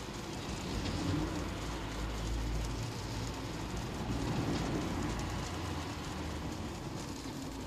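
Rain falling on a car's roof and windscreen, heard from inside the car, over a steady low rumble of the car and the traffic around it.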